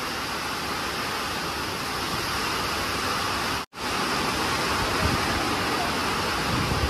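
Heavy rain pouring down in a storm, a steady loud rushing noise, with a break where the video cuts about halfway through. A few low thumps come near the end.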